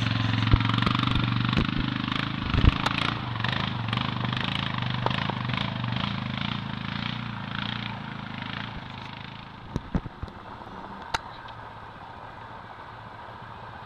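Quad bike (ATV) engine running as it pulls away along a dirt trail, its sound fading steadily over the first ten seconds or so. A few sharp clicks come near the end.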